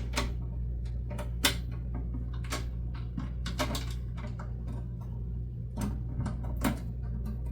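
Irregular small clicks, taps and rustles of a plastic toy horse trailer and its packaging being handled and unfastened, over a steady low hum.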